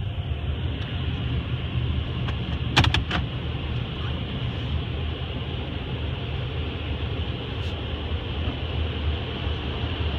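Steady low rumble of touchless car wash tunnel machinery and conveyor, heard muffled from inside a car's cabin. A quick run of three sharp clicks comes about three seconds in.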